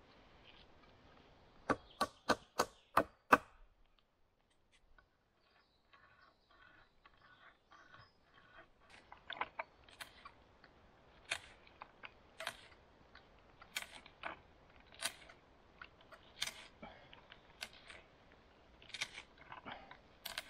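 Six sharp knocks in quick succession near the start, then a knife whittling wood by hand: short cutting strokes, roughly one a second, with light clicks between them.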